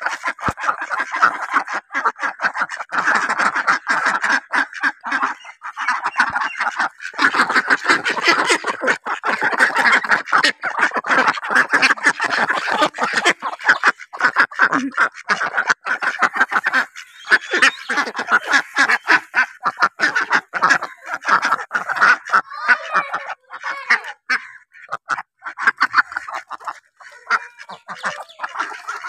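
A flock of domestic ducks, mallard-type and white Pekin, quacking non-stop at close range, with many short, rapid calls overlapping.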